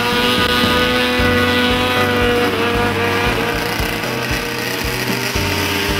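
Snowmobile engine running steadily at speed as the sled skims across open water, with rock music playing underneath.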